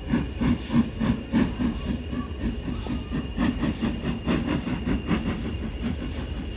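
7F 2-8-0 steam locomotive running light engine, a steady rhythm of beats and wheel clatter, about four to five a second, loudest in the first second or so.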